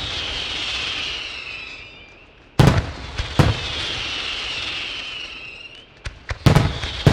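Aerial firework shells from a La Palmese Fireworks display bursting with sharp bangs: two about two and a half seconds in, then a quick cluster near the end. Each burst is followed by a long hiss as the stars burn out.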